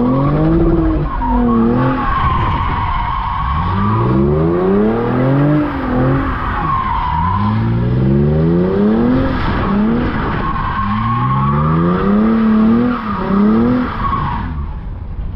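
Lexus RC 350's V6 revving up and falling back several times as the car drifts, with the tyres squealing and skidding on wet pavement. The squeal stops abruptly near the end.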